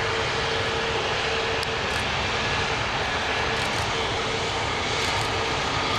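Airbus A321neo jet engines running as the airliner taxis: a steady rush with a whine that is strongest at the start and comes and goes.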